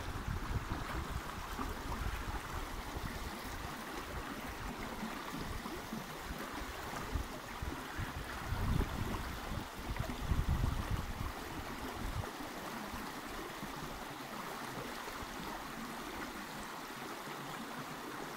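Steady rush of running stream water. Irregular low rumbles sit under it for the first twelve seconds or so and then stop.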